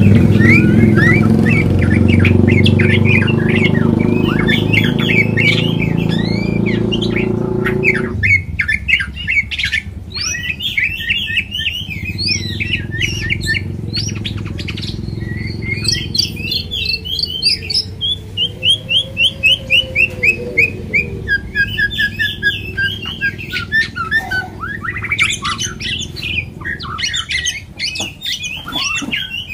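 White-rumped shama (murai batu) singing a loud, varied song of quick whistles and chattering phrases, with a fast run of repeated notes partway through. A low mechanical drone underneath cuts off about eight seconds in.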